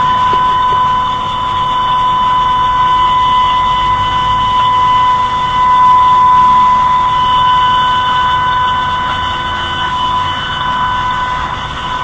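Tornado warning siren sounding one steady, high tone that holds its pitch while its loudness slowly falls and swells.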